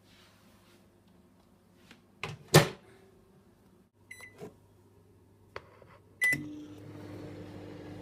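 Sharp microwave oven: the door shuts with a loud knock a couple of seconds in, then keypad buttons click and beep as 20 seconds is set. About six seconds in, a final press beeps and the oven starts running with a steady hum.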